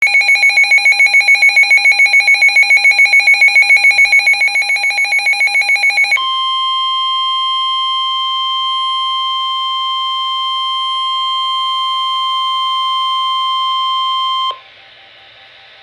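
Emergency weather alert tones: a rapidly pulsing electronic alarm for about six seconds, then a steady single-pitch warning alarm tone, the kind NOAA Weather Radio sends before a severe weather warning. The tone cuts off suddenly near the end, leaving faint radio hiss.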